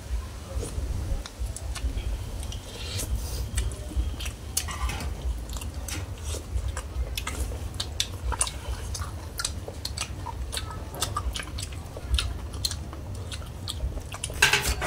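Several people eating bamboo-shoot curry with spoons close to the microphone: chewing and lip-smacking with many short sharp clicks, a denser cluster near the end, over a steady low rumble.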